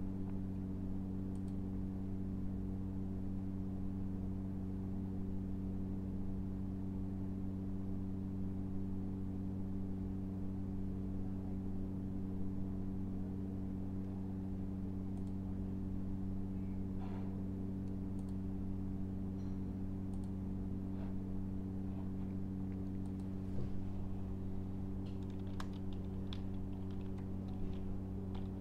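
Steady low electrical hum with a few scattered clicks, then computer keyboard typing near the end.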